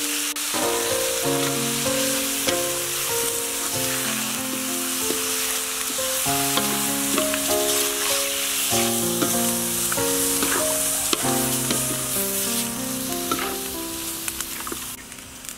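Squid pieces sizzling as they fry in hot oil in a wok, stirred with a spatula, with a few light scraping ticks in the second half. Background music with a melody of held notes plays over it.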